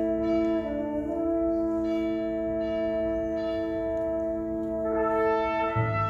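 Student concert band playing long sustained chords, brass and winds together. The chord shifts about a second in, and lower notes come in near the end.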